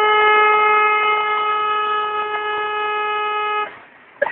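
Car horn held down in one long, steady blast that cuts off abruptly a little over three and a half seconds in.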